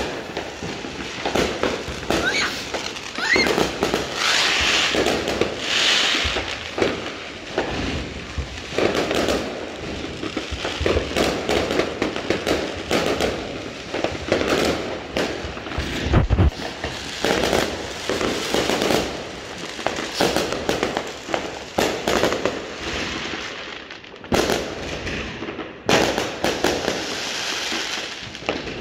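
Many aerial fireworks going off overhead at once: a dense, unbroken barrage of bangs and crackling.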